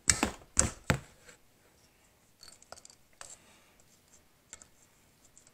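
Hand ratchet with a 12 mm socket working a bolt on the water neck of a cylinder head: a few sharp metal clicks and scrapes in the first second, then a few faint ticks as the tool is handled.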